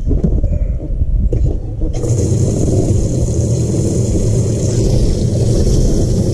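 Boat motor running steadily under wind noise on the microphone, with a rushing hiss that rises about two seconds in.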